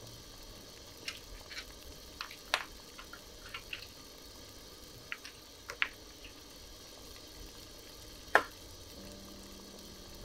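Pot of radish and clam broth heating on the stove: a faint steady hiss with scattered small pops and clicks, the loudest a sharp click about eight seconds in.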